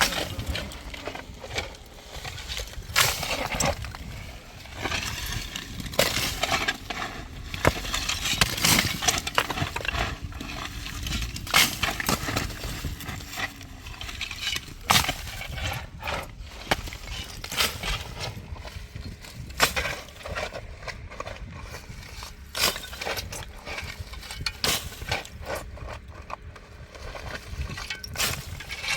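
Irregular knocks, clinks and scrapes of hard objects being handled, with a faint steady hum at times.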